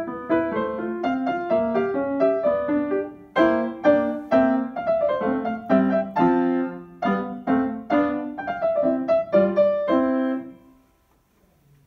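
Steinway grand piano being played, a quick run of notes and chords with a brief pause about three seconds in. The final notes ring and die away about ten and a half seconds in.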